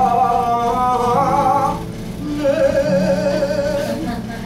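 A young man's solo singing voice holding two long notes in a musical-theatre song, the second with a wavering vibrato, as the song draws to its close.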